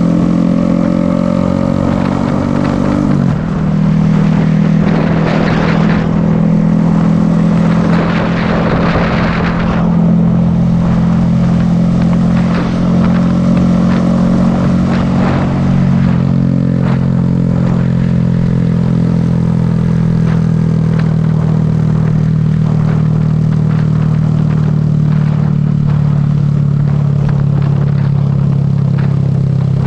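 Motorcycle engine running steadily while riding along a road. The engine note dips and changes about three seconds in, a rushing noise rises over it for a few seconds near the middle, and the engine note sinks slowly later on.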